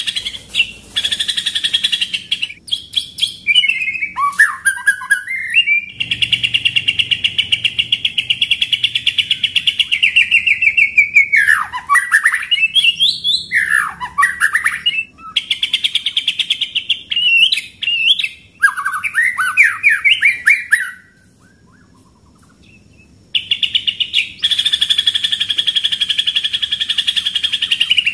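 Caged white-rumped shama singing: long rapid-fire rolling trills held at a high steady pitch, broken by runs of swooping whistled notes, with a pause of about two seconds past the middle. This is the 'tembakan ngeroll' (rolling shots) song style in the manner of the pastol.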